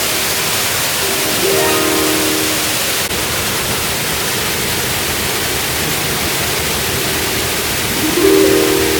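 Waterfall below a dam: a steady rush of falling water. Faint musical notes come and go over it.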